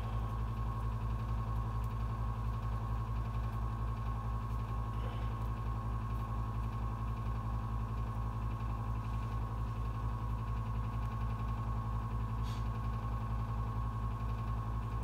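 Steady low electrical hum with a constant thin whine above it, unchanging throughout, with a couple of faint soft taps.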